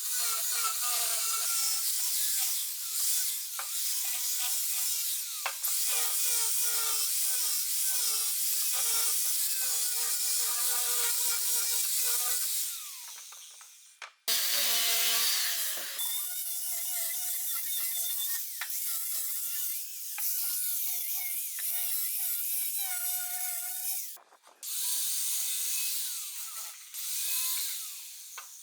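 Power tool grinding and shaping a wooden chair leg, a steady rasping with a wavering whine, broken by a few short pauses.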